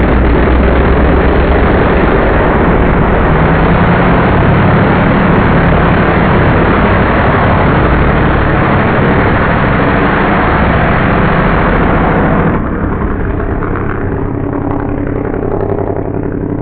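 Two American muscle drag cars' engines running loud and rough at the start line. About twelve seconds in the sound drops and thins as the cars are heard from farther off down the strip.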